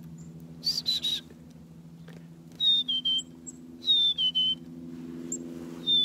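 Black-capped chickadee singing its two-note whistled 'fee-bee' song three times, the second note lower than the first, with a single higher whistled note about a second in. A steady low hum runs underneath.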